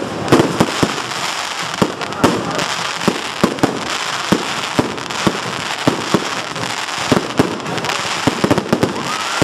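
Fireworks display: aerial shells bursting in rapid, irregular bangs over a continuous crackle.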